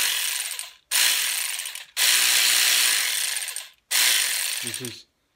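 ACDelco ARW-1209 cordless 3/8-inch ratchet wrench running with its head off the bolt, in four trigger bursts of one to two seconds with brief gaps between. The head is spinning in the opening (loosening) direction.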